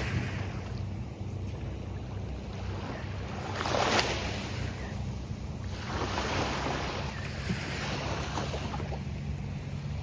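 Gulf of Mexico surf breaking on a beach, with a wave crashing about four seconds in and more washes of surf after it, over a steady low rumble.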